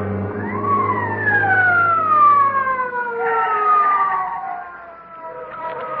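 Police siren sound effect that winds up quickly and then slowly winds down in pitch, over a low hum that fades out about halfway through.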